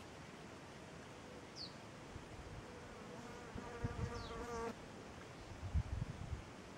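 A flying insect buzzing close past the microphone: a steady hum that grows louder for about a second and a half, then cuts off sharply about halfway through. There are two faint short high chirps and a few low bumps on the microphone, the loudest near the end.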